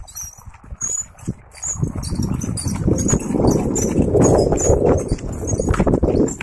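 Bare metal bicycle rims of a homemade toy cart rolling and rattling over a rough dirt path as it is pulled, building to a loud, uneven clatter from about two seconds in.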